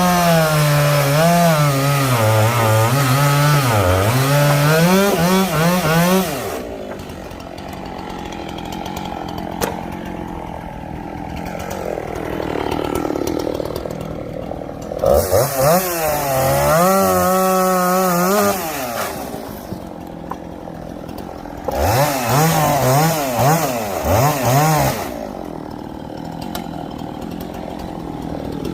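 Two-stroke chainsaw cutting sweetgum firewood: three runs at full throttle, the pitch sagging and wavering as the chain bites. The first lasts about six seconds and two shorter ones come around the middle and about two-thirds through, with the saw dropping back to a quieter idle between them.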